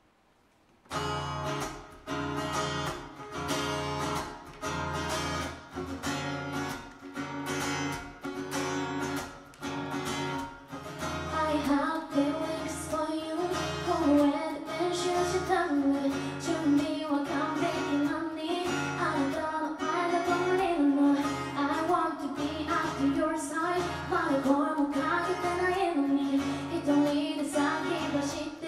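Steel-string acoustic guitar strumming in a steady rhythm starts about a second in; a woman begins singing over it about ten seconds later.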